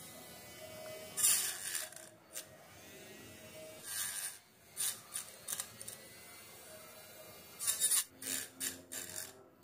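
Small handheld DC-motor grinder with an abrasive disc running with a faint steady whine. The disc rasps briefly several times as it cuts into a leaf stem, with a cluster of cuts near the end.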